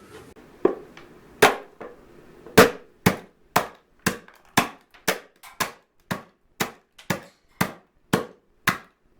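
A run of sharp knocks: a few irregular ones at first, then evenly spaced at about two a second.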